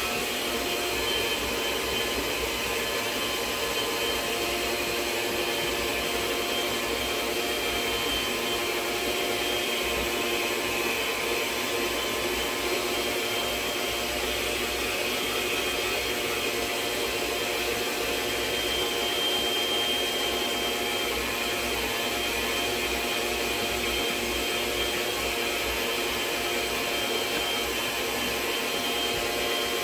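Electric stand mixer running steadily, its motor whirring with a constant whine as the beaters churn cream cheese and canned pumpkin into a spread.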